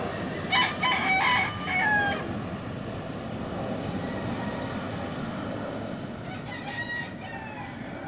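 A rooster crows loudly, starting about half a second in and lasting about a second and a half, with a fainter crow near the end. Underneath, the steady rumble of a jet airliner climbing away.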